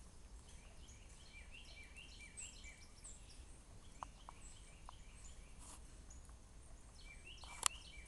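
Small songbirds chirping faintly with many short, quick chip notes, thickest about two to three and a half seconds in and again near the end, over a low steady background rumble. A single sharp click comes near the end.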